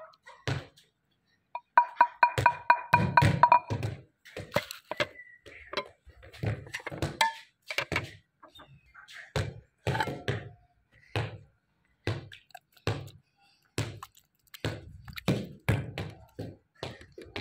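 Wooden spoon repeatedly knocking and scraping against the inside of a carved wooden bowl while thick yogurt raita is mixed and scraped out, a dull thunk about once or twice a second. A brief pitched tone sounds about two seconds in, over the loudest knocks.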